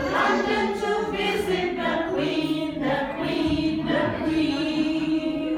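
A group of people singing a song together, with long held notes.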